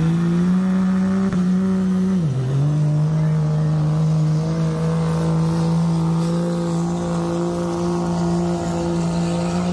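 Engine of a pulling truck or tractor running at high revs under full load, with a high whine above it. The engine pitch dips briefly about two seconds in, then holds steady.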